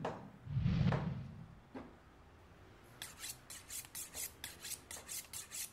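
Sound effects over the teaser's closing title card: a short low whoosh about half a second in and a single click, then, for the last three seconds, quick rhythmic rasping strokes, about five or six a second, like scratching or filing.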